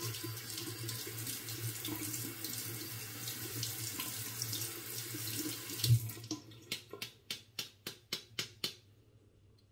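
Bathroom tap running into a ceramic sink as a three-blade disposable razor is rinsed, washing the stubble out from between the blades. About six seconds in, a thump as the water is shut off, then about ten quick sharp taps, fading, as the razor is knocked to shake the water out.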